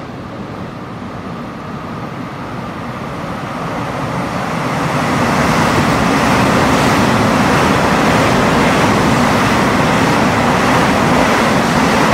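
EMU3000 electric multiple-unit train passing through a station. Its wheel and running noise grows louder over the first five seconds, then holds steady.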